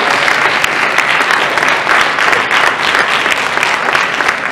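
An audience of many people applauding: dense, steady clapping.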